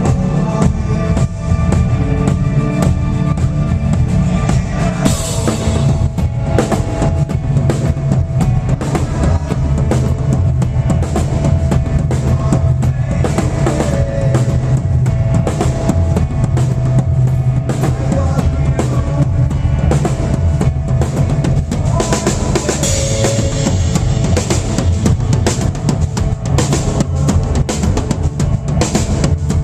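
Music played on a drum kit, with kick drum, snare and cymbal strikes, over sustained low pitched notes.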